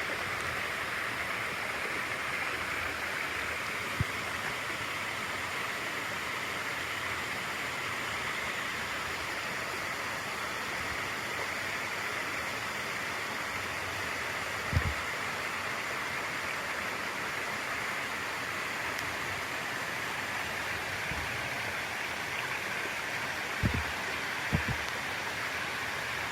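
Stream water rushing steadily over a small waterfall, an even hiss with no pauses. A few soft low thumps stand out briefly, one near the middle and two near the end.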